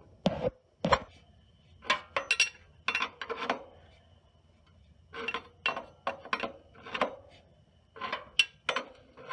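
Steel open-end wrench clinking and clanking against the motorcycle's rear axle nut as it is refitted and pulled, working the 27mm nut loose. The sharp metal clinks come irregularly, in small groups of two or three.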